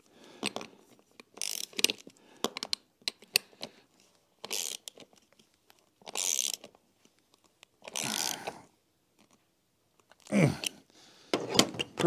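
Hand socket ratchet clicking in short runs, about every two seconds, as it tightens the bolts of a bicycle seat clamp, with scattered sharp clicks of metal parts between.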